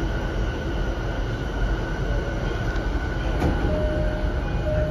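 Steady hum inside an E233-7000 series commuter train car standing at a station with its doors open. From about three and a half seconds in, the door-closing chime sounds: a repeated steady tone with short gaps, as the doors start to close.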